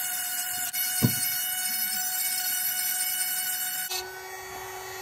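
Handheld rotary tool with a grinding stone running at a steady high whine while it grinds the cutters of a saw chain, with a sharp knock about a second in. About four seconds in the sound changes abruptly to a lower steady whine.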